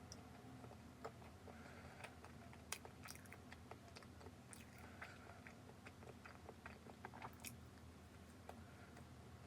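Faint close-up chewing of soft cream-filled bread, with scattered small wet mouth clicks.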